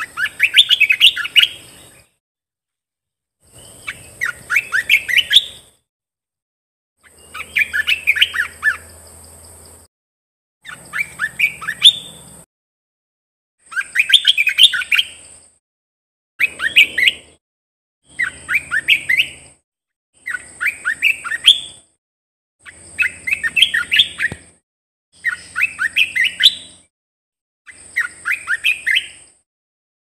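Olive-winged bulbul singing. It repeats a short phrase of quick, varied notes about every two seconds, with brief silent gaps between phrases.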